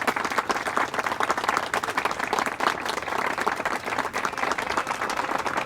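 Dense applause, many hands clapping steadily.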